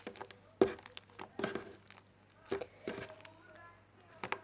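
Homemade glue-and-borax slime being kneaded by hand: a few irregular wet, sticky squelches and smacks as the borax is worked in.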